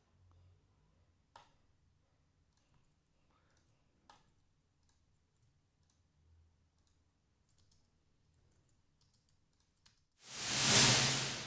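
Faint computer mouse clicks, then near the end a loud whoosh sound effect built from white noise plays back: a rushing hiss that swells in fast and begins to fade away.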